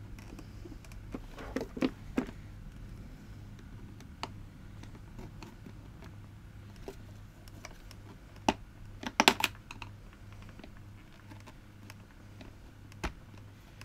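Hard plastic clicks and taps as a small screwdriver prods and prises at the plastic top cover of a Hoover Aquamaster S4470 vacuum, with louder clusters of knocks about two seconds in and around nine seconds.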